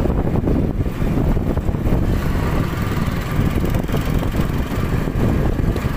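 Motorcycle engine running steadily while the bike rides along a dirt track, heard from on the bike itself.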